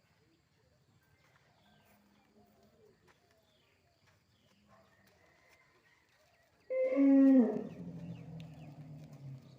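A large mammal gives one loud, deep lowing call about seven seconds in. It starts higher, drops in pitch and trails off into a long low drone. Faint chirps are heard before it.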